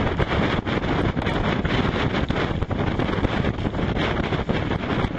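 Strong storm wind blasting across the microphone on a racing yacht's deck: a loud, steady rush with constant ragged buffeting, mixed with the wash of the sea against the hull.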